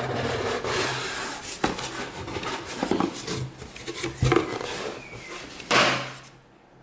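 Cardboard packaging scraping and rustling as a box's outer sleeve is slid off and its flaps are opened, with a few light knocks and a louder scrape near the end.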